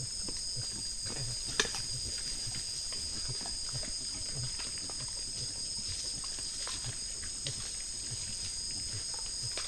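A steady chorus of night insects trilling in several high-pitched bands, with peccaries feeding close by making short, low, irregular grunts. There is one sharp click about a second and a half in.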